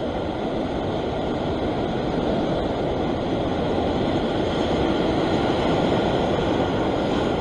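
Sea surf washing over a rock ledge: a steady rush of breaking waves and foaming water that grows a little louder partway through.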